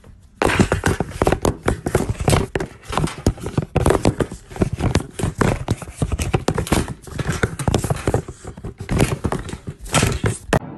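Loud, rapid, irregular knocking and rattling from a phone being shaken and bumped about violently, starting abruptly about half a second in and cutting off just before the end.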